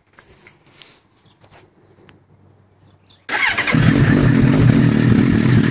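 Suzuki Bandit 1200's inline-four engine, breathing through a Delkevic stubby end can with an added back-pressure plate, starting after a few faint clicks a little over three seconds in. It catches at once and settles into a loud, steady idle.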